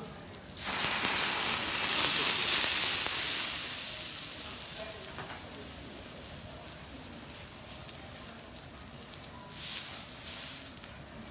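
Wagyu steak sizzling on a hot steel teppanyaki griddle. A loud burst of sizzling starts suddenly about a second in and slowly dies away. A shorter burst comes near the end as the steak is lifted and turned with a spatula and knife.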